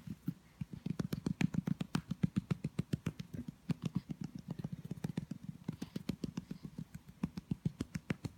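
A hand patting a baby's back quickly and evenly, about five or six pats a second, to bring up a burp.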